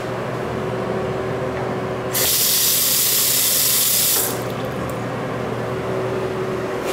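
Single-handle bathroom sink faucet running into a porcelain basin: a loud water hiss starts about two seconds in and stops about two seconds later. Under it, a steady background hum with a constant tone.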